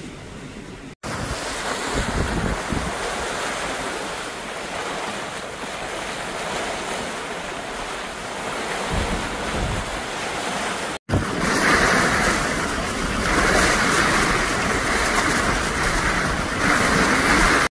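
Wind buffeting the microphone and sea noise on the deck of a sailing ship under way. The sound breaks off briefly twice, and after the second break the wind rush is louder and rougher.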